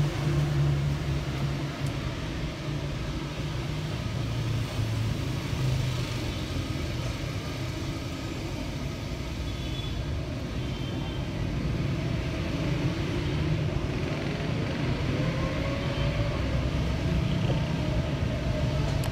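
City street traffic: cars and other motor vehicles running past in a steady rumble, with one engine rising in pitch as it speeds up partway through.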